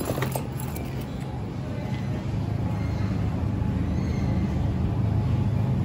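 Shopping cart rolling across a hard store floor: a steady low rumble, with a few sharp clicks near the start.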